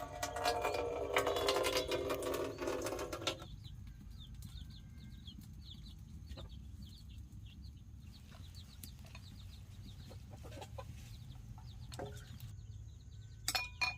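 A loud, many-toned sound that stops abruptly about three seconds in, followed by faint, rapid high peeping of chicks over a low steady rumble, with a few scattered clicks.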